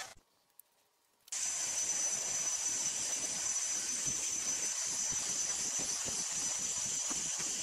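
Handheld vacuum cleaner starting about a second in and then running steadily: a high-pitched whine over a rush of air, as sanding dust is vacuumed off a primed surface.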